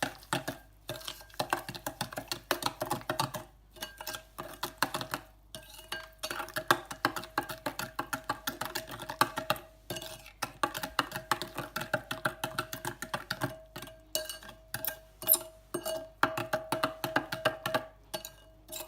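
Spoon stirring a thick sweet and sour sauce in a bowl, clinking and scraping against the bowl in quick repeated strokes, with a few brief pauses.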